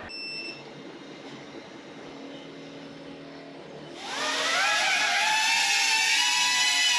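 Custom-built FPV quadcopter's electric motors and propellers spinning up for take-off about four seconds in: a sudden high-pitched whine made of several tones, rising in pitch and then holding steady. Before that, only quiet room tone.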